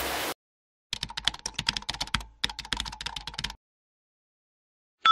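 Computer keyboard typing: rapid clicks in two runs with a short break between them. Background music cuts off just before.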